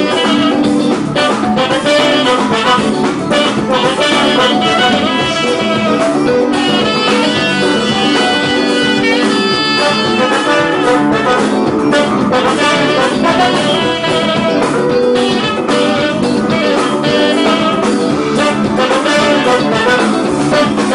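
Saxophone played live, carrying a melody over loud, steady backing music.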